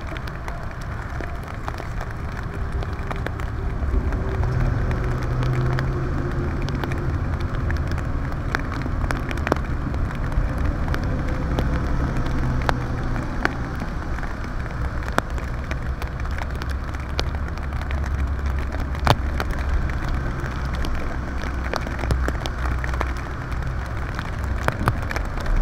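Steady rain falling, with scattered drops ticking sharply close by. A low vehicle engine rumble runs underneath and grows a little louder about four seconds in.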